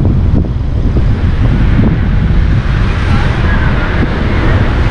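Steady low rumble of wind buffeting the microphone together with the road and tyre noise of a car driving.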